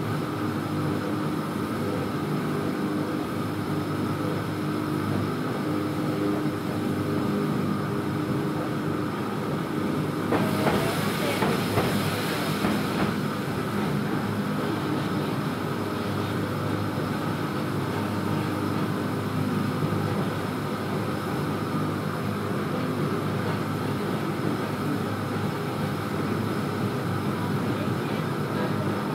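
Electric railway train running along elevated track, heard from inside the car: a steady rolling rumble of wheels on rail with a low, steady hum. About ten seconds in it briefly grows louder and harsher for a couple of seconds, then settles back to the even running sound.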